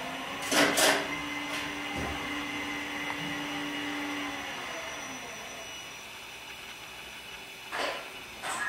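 Small elevator running: a steady motor hum that glides down in pitch and fades about halfway through as the car slows. Two sharp knocks sound about half a second in, and two more near the end.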